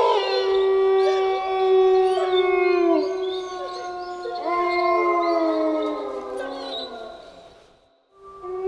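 Wolves howling in chorus: several long, overlapping howls at different pitches, some wavering and sliding down at their ends. The howls fade out near the end, and a new round starts just before it ends.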